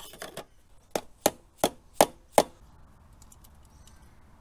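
Five sharp taps in quick succession, about three a second, after a few lighter clicks: hand work fitting the quiet core baffle into an FMF Powercore 4 exhaust, an insert held by one screw done up with an Allen key.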